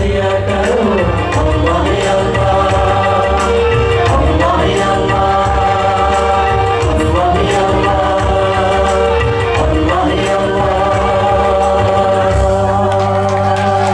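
Male nasheed vocal group singing live through a PA: a slow, ornamented melody with long held notes, several voices together over a continuous low accompaniment.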